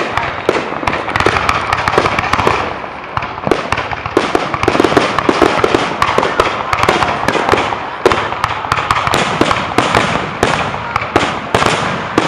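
Aerial fireworks going off in a dense, unbroken barrage: many sharp bangs a second over continuous crackling.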